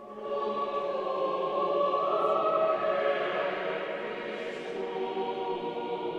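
Background choral music: voices holding long, sustained notes in the manner of chant, swelling in about half a second in.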